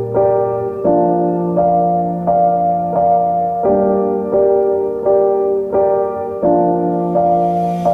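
Background music: a gentle piano-like keyboard playing repeated chords at an even pulse, with a note struck about every 0.7 seconds.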